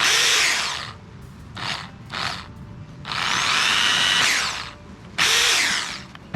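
Power drill running in five bursts, two of them short, its motor pitch sweeping as it spins up and slows, boring the hinge holes in the Prado's plastic centre console.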